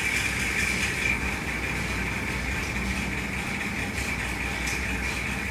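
Steady background hum with hiss and a faint steady high-pitched whine.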